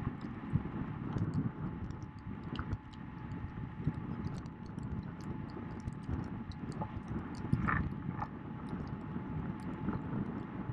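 Steady drone of the following launch's outboard motor, mixed with wind and water noise, with faint scattered ticks over it.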